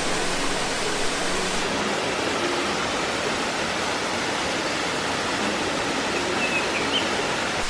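Waterfall pouring and splashing close by, a steady, even rush of falling water.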